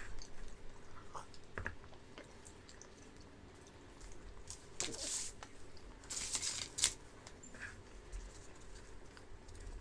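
A man speed-eating deviled eggs: scattered wet smacks and clicks of chewing and lip-smacking. There are two short hissing rushes near the middle and a sharp click just before the seven-second mark.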